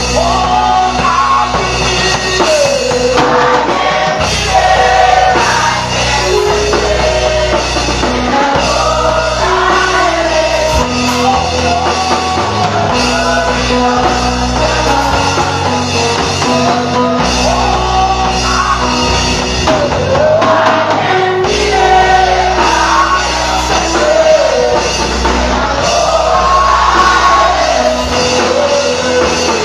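Gospel worship song played by a band with singing, drum kit and bass, the music running steadily and loud.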